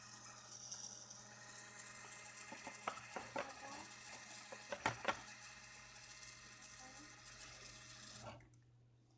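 Brushless yaw motor of a BaseCam-controlled gimbal making a steady buzzing whine of many fixed tones, the unwanted noise on its yaw axis. A few sharp clicks come in the middle, and the noise cuts off suddenly near the end.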